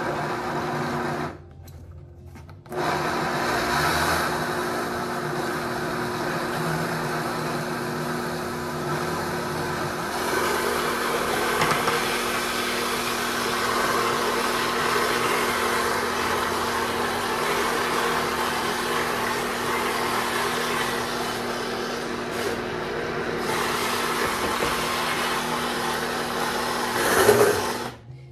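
Vitamix blender grinding a thick cashew and pine nut paste for a vegan cheese, a slow job. It stops about a second and a half in, starts again a second later and runs steadily, then surges louder briefly and stops near the end.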